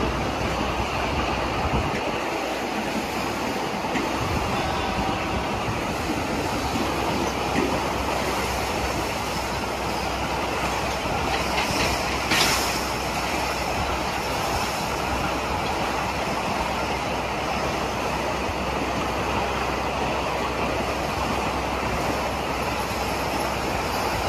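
Empty sugarcane bins of a cane train rolling past on narrow-gauge tramway track: a steady rumble and rattle of wheels and bins. About halfway through there is a brief, louder, sharp metallic sound.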